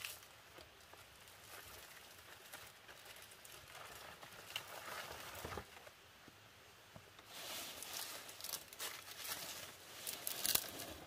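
Palm leaves and dry brush rustling and crinkling as they are handled, with a few sharp clicks; the rustling grows louder over the last few seconds.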